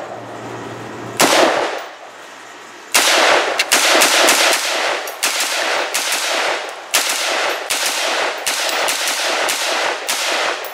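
Semi-automatic HK G36 rifle in 5.56 NATO being fired. There is a single shot about a second in, then a fast string of shots at roughly two to three a second, each report ringing out.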